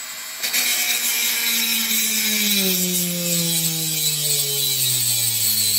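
Small corded rotary tool cutting off a protruding metal pin on a model railway point motor: a loud grinding hiss begins about half a second in, over a motor whine that falls steadily in pitch.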